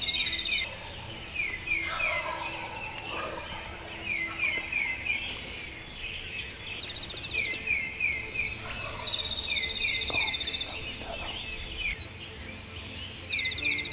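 Wild turkeys gobbling several times, each gobble a rattling call that drops in pitch. Other birds sing throughout: repeated chirp phrases and a fast, high, dry trill.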